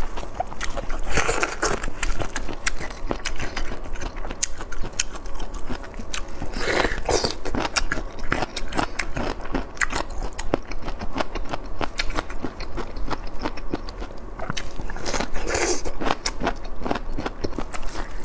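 Close-up chewing of crisp bamboo shoot: a steady run of crunching clicks, with three louder crunches about a second in, around seven seconds and near fifteen seconds.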